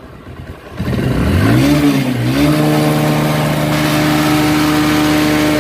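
Motorcycle engine revved up, easing off briefly, then revved again and held at steady high revs.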